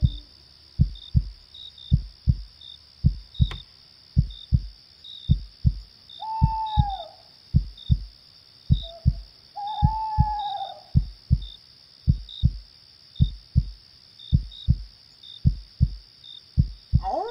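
Heartbeat thumping in slow lub-dub pairs, about one beat a second, over a steady high chirring of crickets. An owl hoots twice, around a third and two thirds of the way in, and a wolf howl begins rising at the very end.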